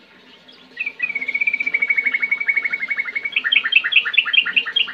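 Yellow-vented bulbul (trucukan) singing: a short note just before a second in, then a rapid trill of about ten notes a second, which turns near the end into a run of louder notes jumping between a high and a lower pitch.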